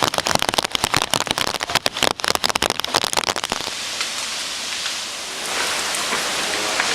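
Rain: a dense, rapid patter of drops striking a hard surface close by, easing about three and a half seconds in into a steady even hiss of rainfall.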